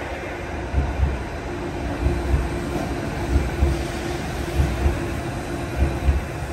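New metro train running at speed past an underground platform: a steady rumble with pairs of heavy low thumps about every second as the wheels cross the rail joints, over a steady electric hum.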